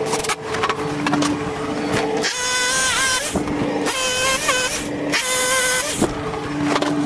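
Repeated bursts of power tools: a corded hammer drill boring through a new wooden bottom plate into the concrete slab, and a cordless driver sending fasteners down to anchor the plate. The motor whine drops in pitch for a moment under load a couple of times.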